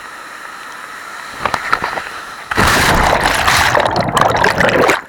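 Rushing water with splashing: a steady wash at first, then a loud, dense churning splash about halfway through that cuts off sharply near the end.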